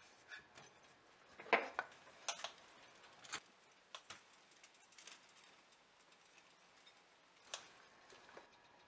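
A wooden rolling pin rolling out dough on a wooden board, with faint, scattered light clicks and knocks, several close together near the start and a last one near the end.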